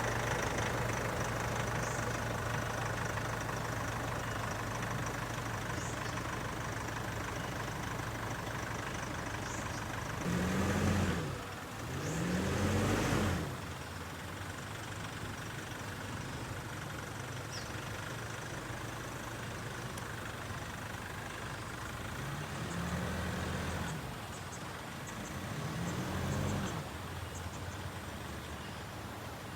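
Motor vehicle engine running, with four short swells that rise and fall in pitch, in two pairs about twelve seconds apart.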